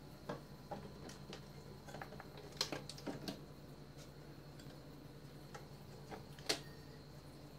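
Light clicks and knocks of MDF cabinet doors being opened and shut on concealed hinges. The two sharpest knocks come about two and a half and six and a half seconds in, over a faint steady hum.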